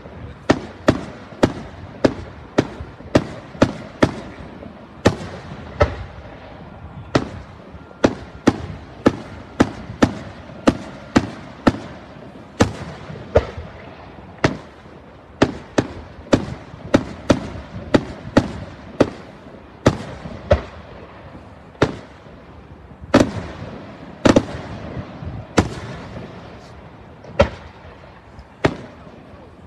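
Aerial firework shells bursting in a display: a near-continuous string of sharp bangs, about two a second, over a steady noisy background, with a brief lull a little past two-thirds of the way through.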